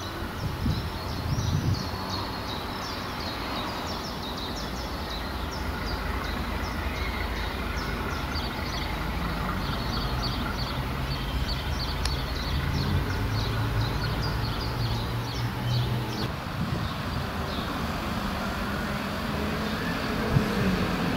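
DB Class V 65 diesel locomotive running as it pulls passenger coaches slowly, a steady low engine drone that swells in the middle. A single sharp knock comes near the end.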